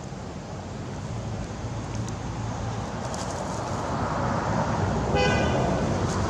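A motor vehicle's engine running and growing louder as it approaches, with a short horn toot about five seconds in.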